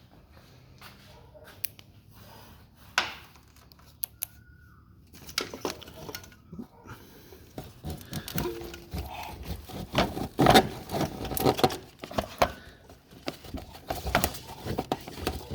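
Clicks, knocks and rattles of a car's wiring harness and its plastic plug connectors being worked loose by hand, sparse at first and growing busier and louder about halfway through.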